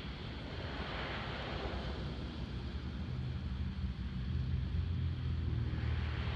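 Built-in blower fan of an inflatable yard decoration running with a steady low hum that grows stronger about halfway through as it inflates the figure, with wind noise on the microphone.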